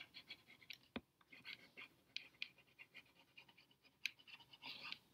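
Faint scratching and light taps of a stylus writing on a tablet screen, with one sharp click about a second in.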